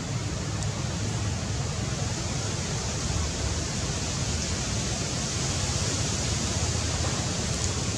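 Steady hissing outdoor noise with a low, fluctuating rumble underneath, and only a few faint ticks.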